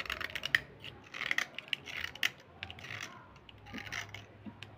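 Metal blade scraping a slate pencil, shaving it to powder: short dry scratching strokes in quick clusters, about one a second, with small sharp clicks, dying away near the end.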